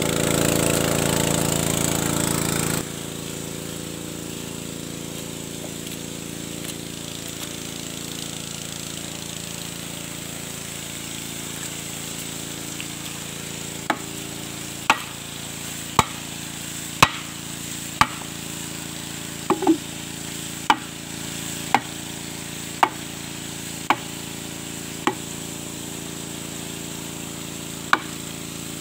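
A small engine runs steadily for about three seconds and cuts off abruptly. After a stretch of low background noise, sharp knocks on the borehole pipe come about once a second, a dozen or so in a row, with one more near the end.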